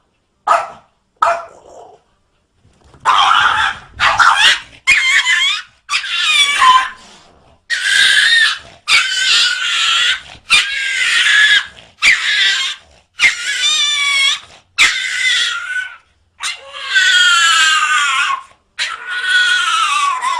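A dog giving a few short yelps, then a long run of high, drawn-out whining calls, each about half a second to a second long with short breaks between. Some calls waver in pitch, and the last ones slide downward.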